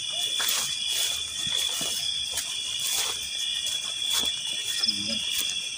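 Night insects, crickets among them, trilling steadily at a constant high pitch, with scattered footsteps and rustling through grass as people walk.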